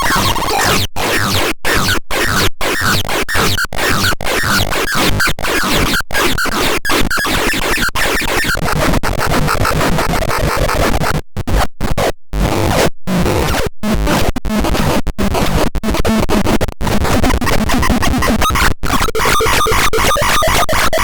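Synthesizer making harsh, glitchy noise that stutters and cuts out in many brief gaps, several close together about halfway through; near the end, steadier pitched tones come back in.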